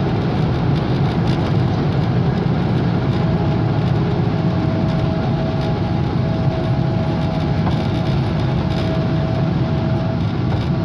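Boeing 777-200 jet engines running, a steady low rumble with a faint high whine that comes and goes.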